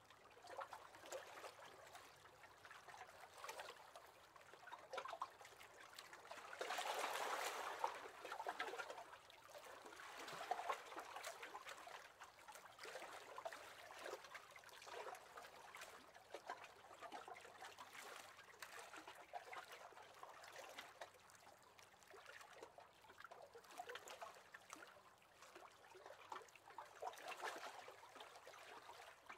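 Faint, gentle lapping of small waves on water, swelling for a moment about seven seconds in.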